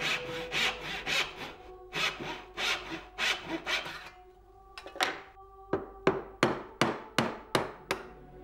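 Brass-backed backsaw cutting across a small piece of hardwood held in a bench vise, at about two strokes a second. After a short pause comes a quicker run of shorter, sharper strokes.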